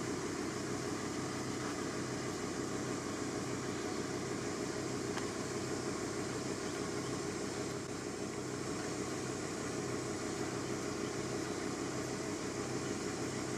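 A steady mechanical drone with a low hum, unchanging throughout.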